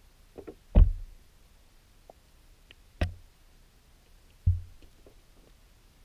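Three dull knocks, the first the loudest, about a second in, at three seconds and at four and a half seconds, muffled as heard through an underwater camera housing, with a few faint clicks between.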